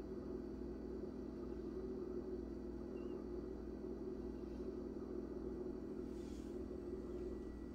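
Steady low hum with a faint rumble underneath, unchanging throughout: background room tone, with a faint brief rustle about six seconds in.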